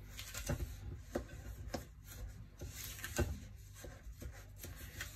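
Fingers kneading and squeezing buttered biscuit crumbs in a glass bowl: a soft, crumbly rubbing and rustling, with a few light knocks against the glass.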